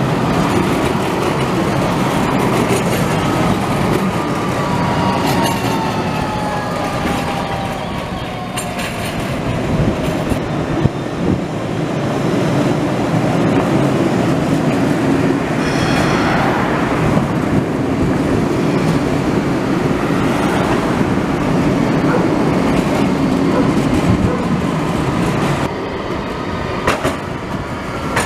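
Eurotram light-rail trams running past on street-level track: a steady rumble of wheels on rail, with a whine that falls in pitch over the first ten seconds and a brief high squeal about sixteen seconds in.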